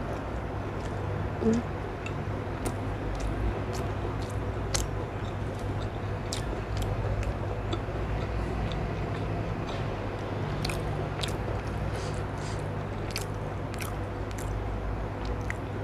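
Close-up eating sounds: chewing and biting food, with scattered short wet mouth clicks, over a steady low hum.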